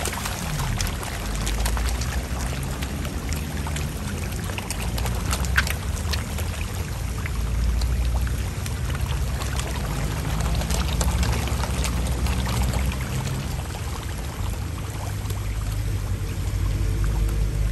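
A mass of koi crowding the pond surface for food, churning and splashing the water: a steady watery sloshing peppered with many small sharp splashes, over a low rumble.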